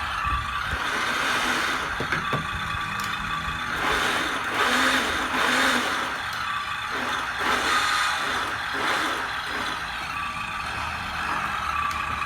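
Hengguan 1/12-scale radio-controlled 6x6 Cougar model truck running, its electric drive giving a steady whine with gear hiss that swells louder several times in the middle.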